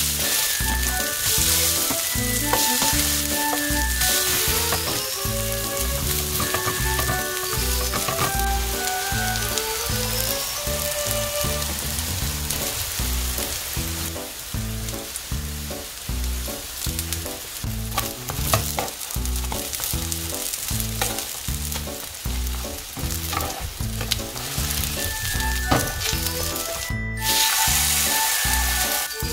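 Vegetable and enoki mushroom pancakes sizzling steadily as they fry in oil in a nonstick pan, over background music with a steady beat.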